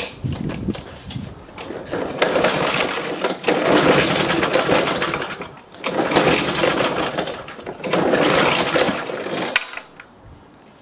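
Briggs & Stratton 35 Classic single-cylinder lawnmower engine pulled over and running roughly in three short surges, then dying about nine and a half seconds in. This is the starts-runs-and-dies fault that the owner puts down to the carburettor diaphragm and gasket.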